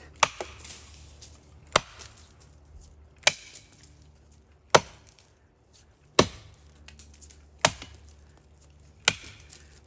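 An axe chopping into a standing tree trunk, cutting the felling notch: seven sharp strikes into the wood, about one every second and a half.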